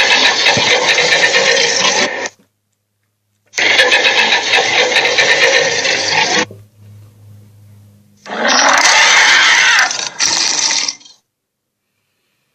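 A cartoon monster's sound effect: a harsh, noisy sound played three times, each burst about two to three seconds long and cut off abruptly, with silent gaps between.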